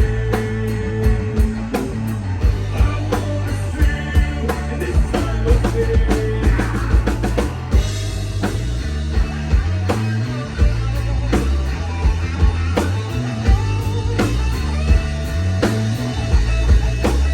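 Rock band playing an instrumental passage: a drum kit keeping a steady beat under bass notes and electric guitar lines.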